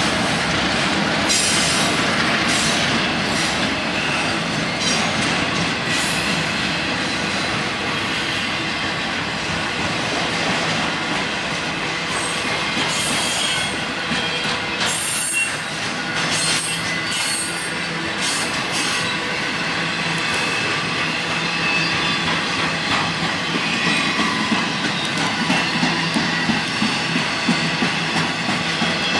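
Freight train cars rolling past with the steady rumble of wheels on rail. Shrill wheel squeal comes and goes through the first two-thirds, and a regular clack of wheels over rail joints stands out near the end.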